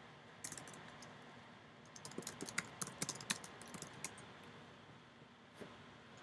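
Keys tapped on a computer keyboard: a short flurry about half a second in, a denser run from about two to four seconds, then a single click near the end as the search is entered.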